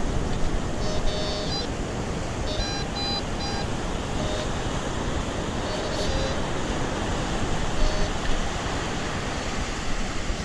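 White's TreasurePro metal detector sounding short beeps at two or three different pitches, one after another, as it passes over a target, over steady surf noise.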